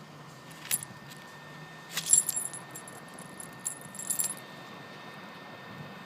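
Light metallic clinking and jangling: a single clink under a second in, then a cluster of clinks around two seconds and another around four seconds, over a faint steady hum.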